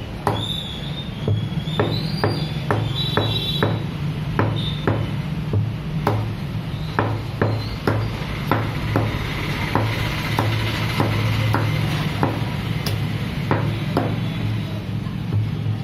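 Butcher's cleaver chopping a skinned chicken into small pieces on a wooden log block: an irregular run of sharp chops, up to about two a second, over a steady low hum.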